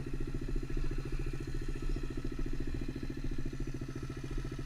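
Small four-stroke pit bike engine idling steadily in neutral.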